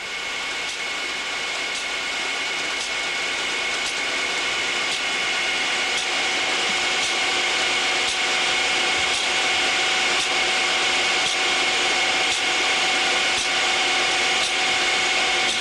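Hose-reel irrigator running: a steady mechanical whine over a constant hiss, with faint scattered ticks.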